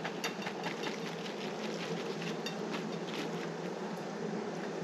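Salad being tipped out of its plastic container into a bowl: faint rustling and light taps over a steady background hum.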